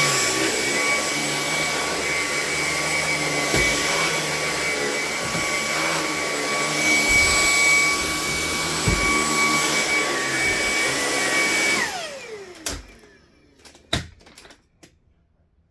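Hoover ONE PWR Emerge cordless stick vacuum running steadily with a high motor whine and a few dull knocks. About twelve seconds in it is switched off and the motor winds down with a falling whine, followed by two sharp clicks.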